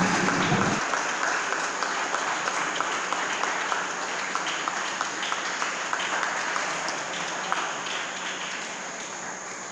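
Audience applauding as the last of the music stops, under a second in. The clapping then slowly fades.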